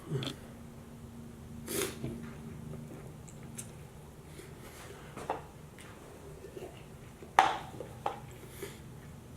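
Quiet eating sounds: breaths and chewing, with a few sharp clicks of cutlery against a plate, the loudest about seven seconds in.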